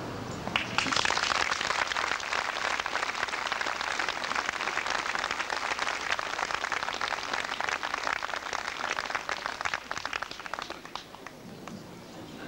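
Large crowd applauding outdoors, starting suddenly about half a second in and dying away near the end.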